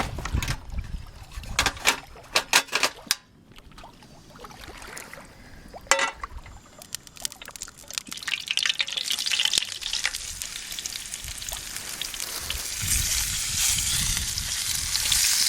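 A few sharp clicks and knocks of handling, then a steady hiss of flour-dredged trout sizzling in a frying pan, building from about halfway in.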